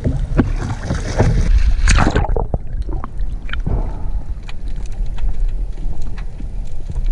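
Water splashing for about two seconds as a diver slips off a kayak into the sea. The sound then turns muffled underwater, leaving a low rumble with scattered faint clicks.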